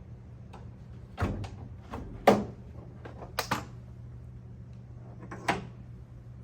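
A series of sharp metal clunks and clicks, the loudest about two seconds in: a Jeep's hood being unlatched and lifted open.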